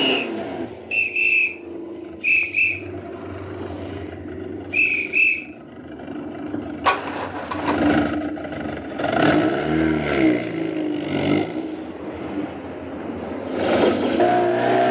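Car engines idling and revving in traffic at a red light, their pitch sweeping up and down in the second half. In the first few seconds, three pairs of short, high-pitched toots sound above them.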